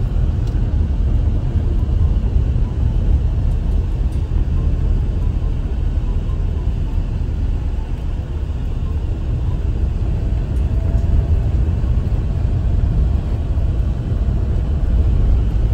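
Steady engine and road rumble heard from inside the cabin of a moving Toyota HiAce passenger van.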